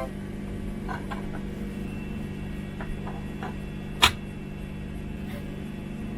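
A steady low hum with a few faint taps, then one sharp click about four seconds in.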